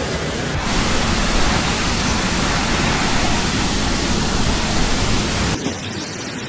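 Loud, steady rush of typhoon wind and driving rain, heavy and rumbling at the bottom. It changes character abruptly about half a second in, and again near the end, where it turns thinner and quieter.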